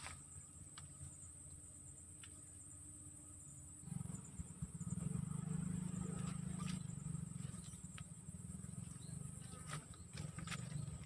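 Steady high-pitched drone of insects. About four seconds in, a low rumble comes up underneath, with scattered clicks.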